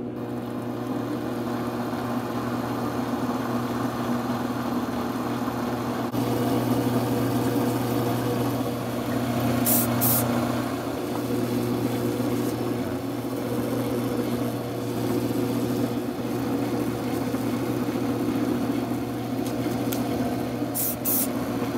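Small wood lathe's motor running steadily at slow speed, with a steady hum, while CA glue is wiped onto a spinning pen blank. Two short high hisses come about ten seconds in and near the end.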